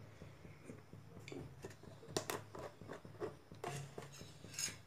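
Faint clicks and light knocks of kitchen utensils being handled beside the stove, over a low steady hum.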